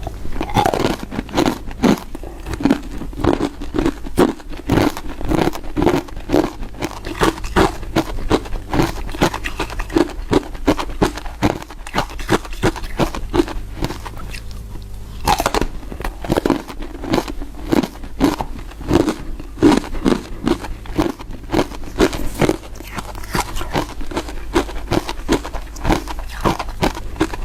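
Matcha powder ice chips being bitten and chewed close to the microphone: a steady run of crisp crunches, about two to three a second, with a fresh bite about halfway through.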